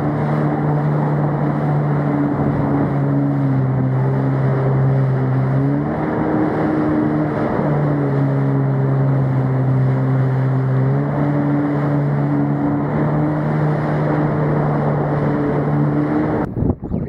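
A jet ski's engine runs hard at speed with the rush of spray and wind. The engine note drops slightly twice for a few seconds and comes back up, then breaks off shortly before the end.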